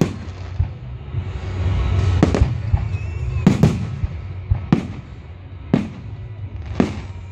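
Aerial firework shells bursting overhead: a string of sharp bangs roughly once a second, several in close pairs, each trailing off in a short echo.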